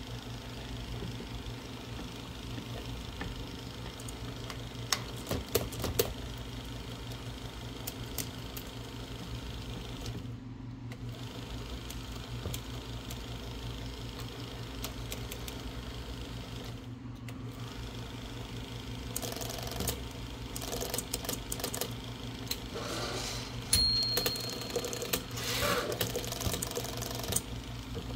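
Olivetti Lettera 36 electric typewriter running on its new drive belt: a steady motor hum with scattered clicks, and busier clatter from the mechanism in the last several seconds. The mechanism is stiff with hardened old grease and needs cleaning.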